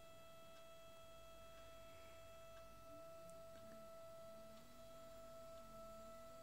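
Near silence with a faint steady whine from a DC motor under a PWM speed controller, and from about three seconds in a fainter low tone that wavers up and down as the speed knob is turned.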